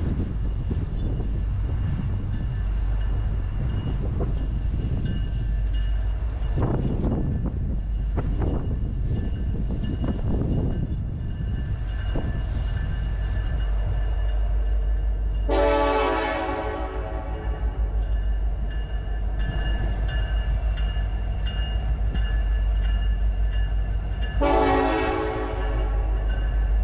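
Approaching freight train led by an EMD SD70ACe diesel locomotive: a steady low engine and rail rumble, then the air horn sounds a long blast about halfway through and a shorter blast near the end as the locomotive draws near.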